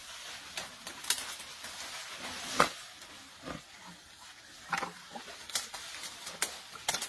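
An Asian elephant pushing and foraging through dense jungle undergrowth: leaves rustle and twigs crackle and snap irregularly, with the loudest snap about two and a half seconds in.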